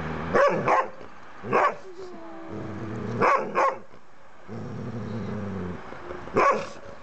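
Dogs at play: about six short, sharp barks, two in quick pairs, with stretches of low, steady growling between them.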